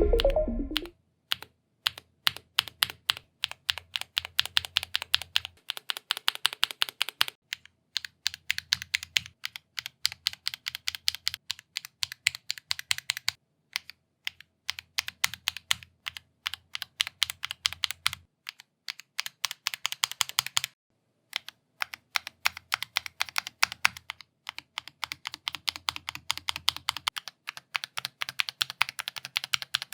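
Fast typing on a ROG Falcata mechanical keyboard: a dense run of key clicks and keycap clacks. It comes in several stretches of a few seconds each, split by brief pauses, and the tone of the keystrokes changes from stretch to stretch as keycaps of different materials (ABS, PBT, translucent) are typed on.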